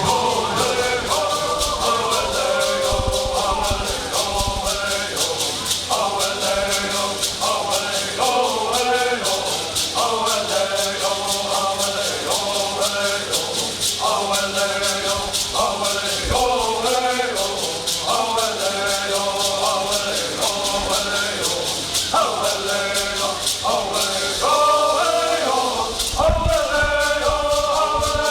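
A group singing a Cahuilla bird song in unison, short chanted phrases repeated about every two seconds, over the steady, fast shaking of gourd rattles.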